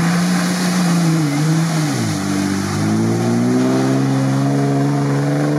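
Jeep Wrangler engine revving hard under load as it churns through deep mud, with the tyres throwing up mud. The revs sag about two seconds in, then climb back and hold high.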